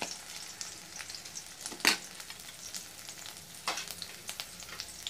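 Chopped green chilli, ginger and garlic sizzling in hot oil in an iron kadai: a steady frying hiss with scattered sharp crackles, the loudest about two seconds in.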